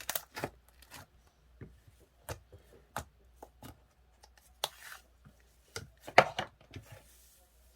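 A series of irregular short taps, clicks and brief rustles from small objects being handled, the loudest a cluster about six seconds in.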